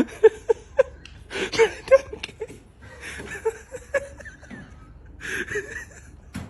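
Short, broken bursts of chuckling laughter, repeated irregularly.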